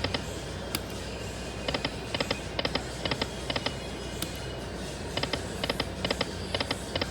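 Lightning Link slot machine's reels stopping one after another, each stop marked by a short burst of ticks, in two runs of stops, over a steady casino background hum.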